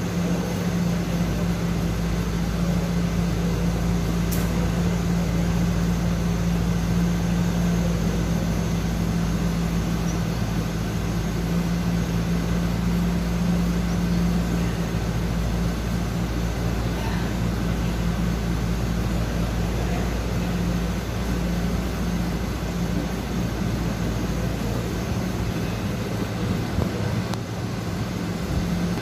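Steady mechanical hum with a constant low tone and a noisy haze over it, unchanging throughout.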